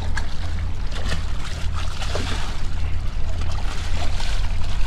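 Water splashing and sloshing as a fish thrashes at the surface beside a pier net being hauled up on a rope, with choppy water lapping against wooden pilings. A steady low rumble runs underneath.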